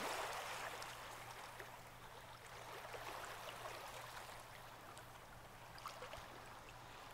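Faint ocean surf ambience: a soft, even wash of waves on a beach, with a low steady hum underneath.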